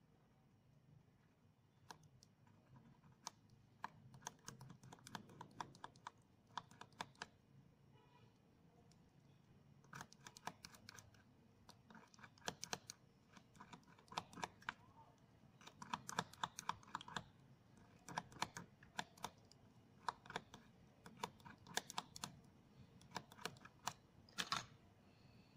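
Faint bursts of quick, sharp little clicks and scratches from hands handling a thin wire lead against a concrete surface, in clusters of about a second each.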